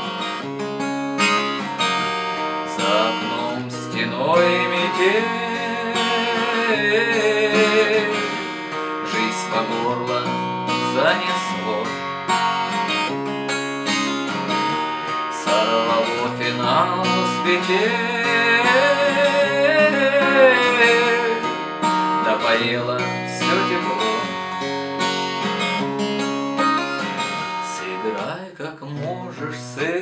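Crafter steel-string acoustic guitar fingerpicked through the chords Em, C, G and D, with a man singing over it; the sung lines come in twice, for a few seconds each, with a wavering held tone at the end of each phrase.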